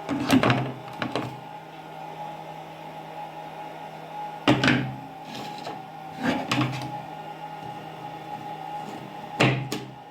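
CNC machine cutting acrylic: a steady motor hum, broken by several short, loud bursts of cutting noise.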